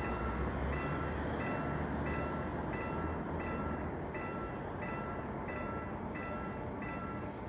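Railroad crossing warning bell ringing steadily, a chord of tones struck about one and a half times a second, with a low rumble underneath in the first few seconds.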